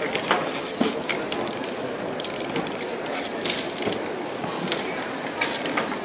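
Scattered clicks, knocks and short hisses as spray cans and painting tools are handled and used, over a steady murmur of a street crowd.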